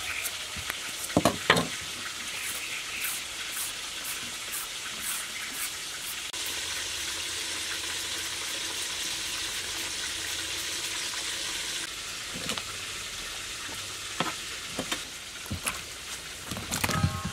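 A knife scraping the skin off a young wax gourd in short strokes, with a few sharp clicks, over a steady hiss.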